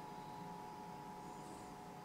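Quiet room tone with a steady faint high hum; no distinct handling sounds.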